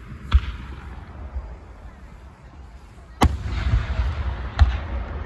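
Fireworks going off: three sharp bangs, the first about a third of a second in, the loudest just past three seconds and another a little over a second later, each trailing off in a noisy tail over a steady low rumble.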